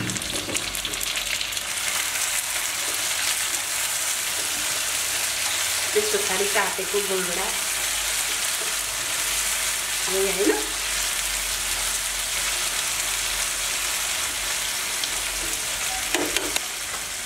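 Chopped tomatoes and onions sizzling steadily in a nonstick frying pan, stirred now and then with a slotted spatula, with a few short louder scrapes.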